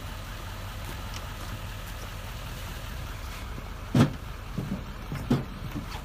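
GMC Sierra Denali HD pickup idling steadily while backing a boat trailer down the ramp. A loud thump about four seconds in, followed by a few lighter knocks.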